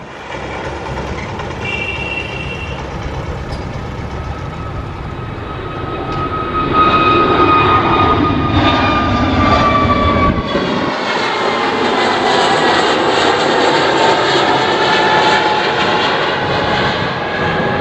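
Airbus A320-family twin-engine jet climbing out after takeoff: a steady jet-engine roar that grows louder about seven seconds in, with whining engine tones that slowly fall in pitch as it passes.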